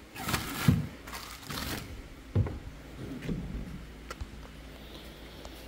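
Hard plastic gear being packed into a kayak's front storage hatch and the hatch lid shut: rustling and handling for the first two seconds, a sharp knock about two and a half seconds in, then softer knocks and a few light clicks near four seconds.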